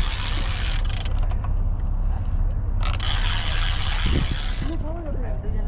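Spinning fishing reel whirring in two long stretches of about a second and a half each, with a hooked fish on the line. A steady low rumble of wind on the microphone runs underneath.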